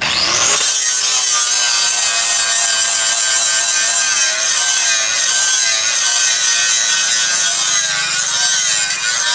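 A power grinder working steel: a loud, continuous grinding hiss with a wavering whine, starting abruptly.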